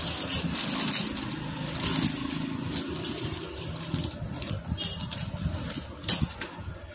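A vehicle engine runs steadily in the background and fades about four seconds in. Over it comes repeated crackling as a plastic gasket-kit packet is handled and opened.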